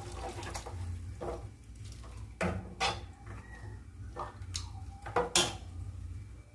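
Metal utensils knocking and clinking against a cooking pot, about seven separate clanks spread irregularly, over a low steady hum.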